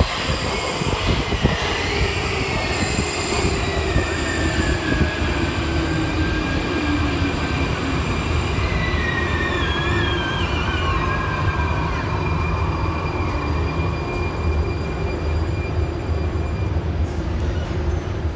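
Prague metro 81-71M train braking into a station. A whine falls in pitch as the train slows over the first dozen seconds, with wavering brake or wheel squeals about ten seconds in, over a steady low rumble.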